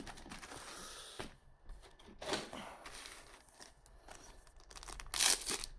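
A trading card booster pack wrapper being torn open and handled, giving brief rustling and tearing noises. A short rustle comes a couple of seconds in, and a louder tear follows near the end.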